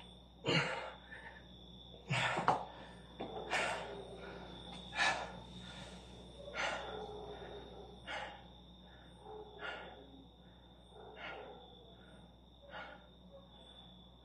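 A man's heavy breathing from exertion after push-ups: hard, gasping exhalations about every second and a half, closer together and louder at first, then spacing out and growing fainter as he catches his breath.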